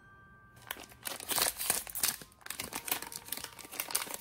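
Foil-lined plastic blind-box pouch crinkling in rapid, uneven bursts as hands handle it, starting about half a second in.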